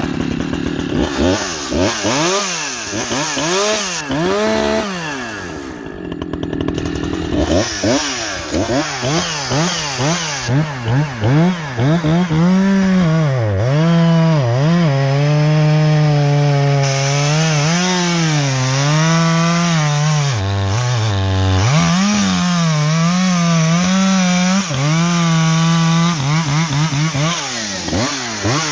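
Echo CS-620PW two-stroke chainsaw running after its carburettor has been leaned out and its muffler baffle removed. The throttle is blipped up and down repeatedly, then held at high revs for several seconds with a few dips, then blipped again in quick short bursts near the end.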